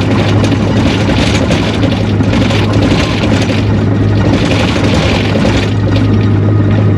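Takeuchi TL240 skid steer running, its engine giving a loud, steady drone.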